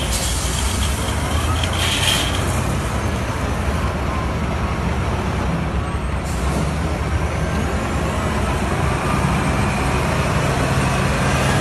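Caterpillar 966D wheel loader's six-cylinder diesel engine running steadily as the machine works, its note growing stronger about nine seconds in as the loader drives its bucket into a gravel pile. Two short high-pitched hisses in the first couple of seconds.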